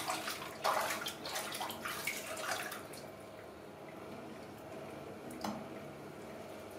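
Water splashing and dripping in a filled sink as hands scoop and pour water over a baby monkey, busy for the first three seconds and then quieter, with one more small splash about five and a half seconds in.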